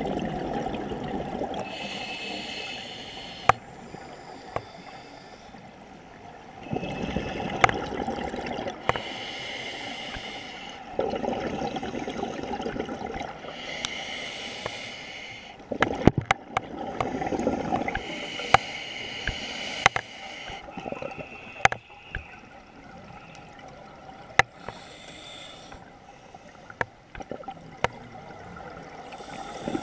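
Scuba diver breathing through a regulator underwater: a hiss on each inhalation, then a gush of bubbles on each exhalation, about every four to five seconds. Scattered sharp clicks.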